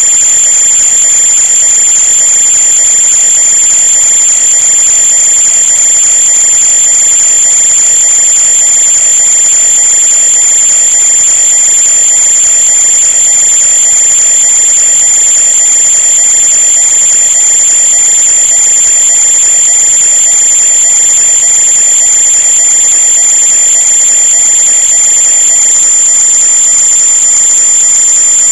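A loud, steady high-pitched tone, with fainter steady tones lower down beneath it.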